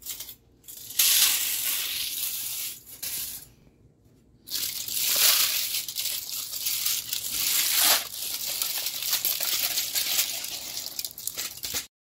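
Aluminium foil crinkling and rustling as it is peeled open and pulled off a rested roast, in long stretches with two short pauses, cutting off abruptly near the end.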